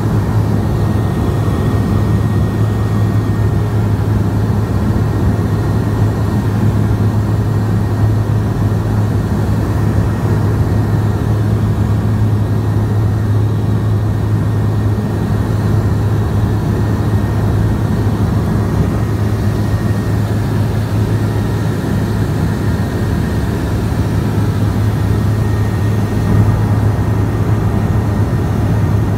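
Cabin drone of a BAe Jetstream 32's twin Garrett TPE331 turboprop engines in flight: a steady, loud low propeller hum over rushing airflow noise.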